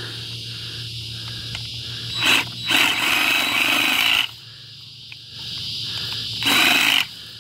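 DeWalt 20V cordless reciprocating saw, running on a low battery, cutting through sago palm frond stems in short bursts: a short one about two seconds in, a longer one lasting about a second and a half, and another near the end. A steady high cicada drone runs underneath.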